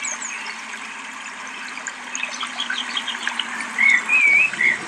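Small birds chirping and whistling over a steady outdoor hiss, with three louder whistled notes about four seconds in.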